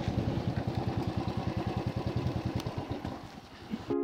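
Motorcycle engine running at low revs with an even, rapid beat, fading out about three seconds in; music begins right at the end.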